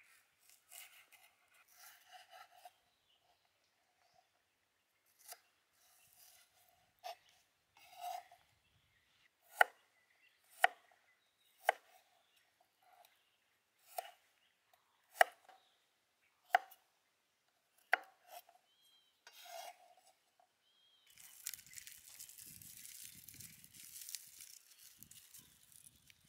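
Chef's knife slicing green onion and garlic cloves on a wooden cutting board: a series of sharp knife strikes on the board, about eleven, roughly one a second, with softer cutting and scraping between them. A steady hiss takes over near the end.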